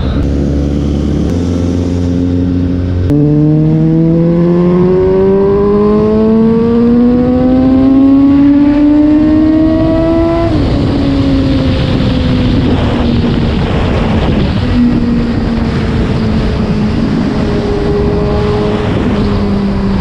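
Suzuki GSX-S750's inline-four engine under way, heard from the rider's seat. It holds steady at first, then from about three seconds in its pitch climbs steadily for about seven seconds as it accelerates, drops sharply as the throttle closes, and winds down slowly.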